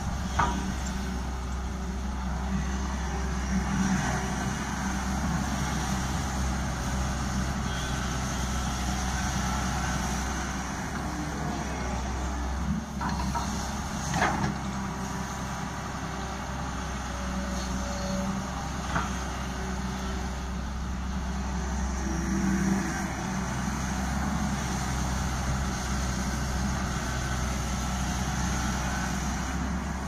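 Tata Hitachi tracked excavator's diesel engine running steadily, with a few sharp knocks; the loudest comes about fourteen seconds in.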